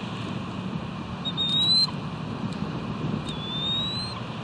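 A bird's thin, high whistle, rising slightly in pitch, given twice about two seconds apart, over a steady background rush.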